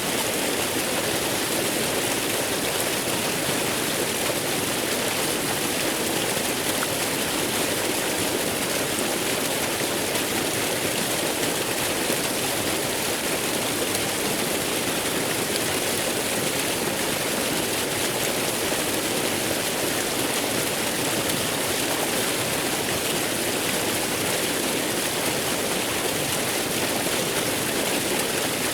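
Waterfall water falling and rushing in a steady, unbroken wash of noise.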